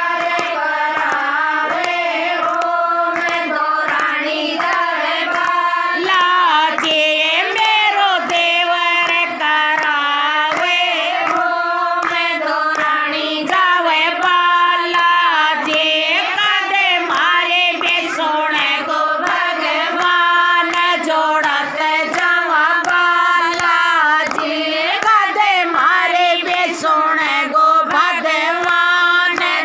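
A group of women singing a Hindi devotional bhajan to Hanuman together, with hand claps keeping time.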